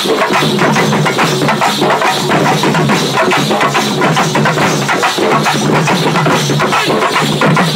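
Loud music with fast, dense drumming.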